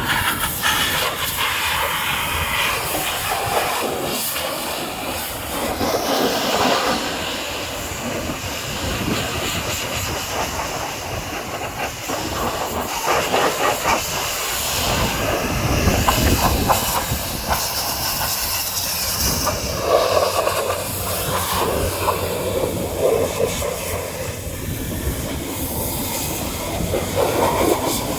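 High-pressure washer jet spraying off mud, a loud steady hiss whose tone shifts every few seconds.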